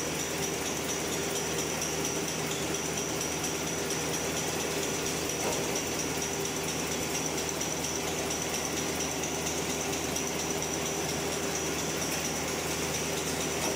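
Napkin-making machinery running steadily: a continuous mechanical hum with a high, steady whine over it.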